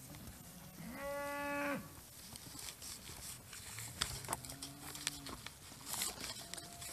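Cattle in a calm herd of cows and calves mooing. One clear call comes about a second in and a second, fainter one at about four and a half seconds, with a few soft knocks in between.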